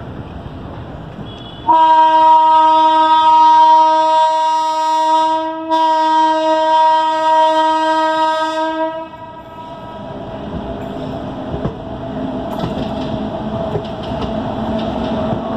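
Indian Railways locomotive horn sounding two long blasts back to back, with only a brief break between them. After the horn stops, the rumble and rail clatter of the trains running side by side grow steadily louder.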